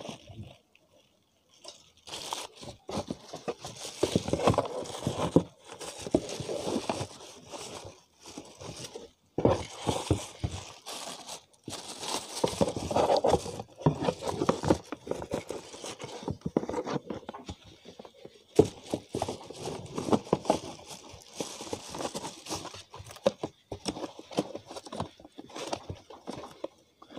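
Plastic wrapping crinkling and a cardboard box scraping and rustling as items are handled and pushed around inside it. It comes in irregular spells broken by a few short pauses.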